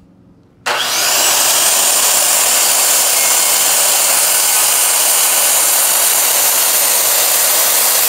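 DeWalt circular saw starting up under a second in, its motor whine rising quickly to speed, then running steadily as the blade cuts through a wooden board.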